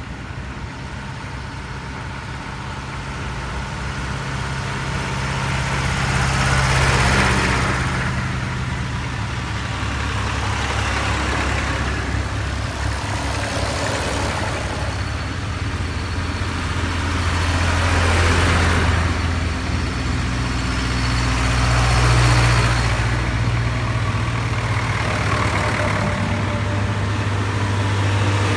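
A procession of vintage farm tractors driving past one after another, their engines running steadily at a low chug. The sound swells as each tractor comes close and eases as it goes by, with the loudest passes about seven seconds in, around eighteen and twenty-two seconds, and near the end.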